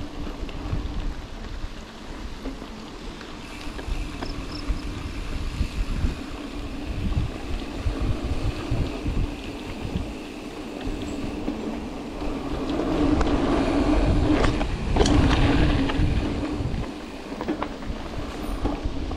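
Mountain bike rolling over a dirt singletrack, heard from a camera mounted on the rider: a steady rumble of tyres on the dirt with scattered knocks and rattles from the bike. It grows louder and rougher for a few seconds past the middle.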